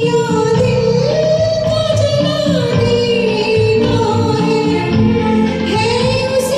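A woman singing a Hindi film song over a karaoke backing track, holding long notes with a wavering vibrato.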